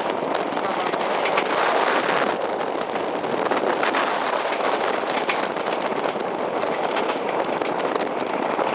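Passenger train running at speed: a steady rushing noise of the carriage on the track, with dense rapid crackling and rattling throughout.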